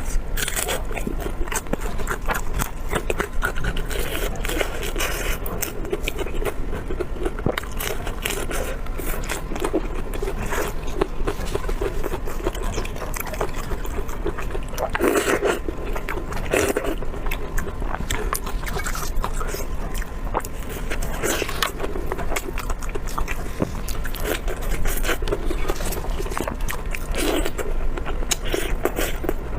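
A person eating: chewing and biting food in a steady run of small clicks and crackles, with a few heavier bites partway through.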